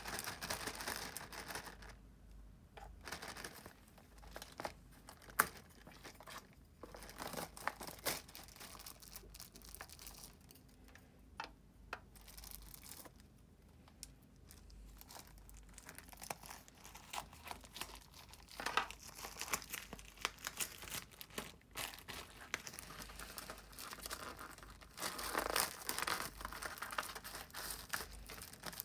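Irregular small clicks and crinkly rustling: wooden chopsticks picking at sticky natto in a thin clear plastic dish, the dish flexing and rustling on a cloth bag.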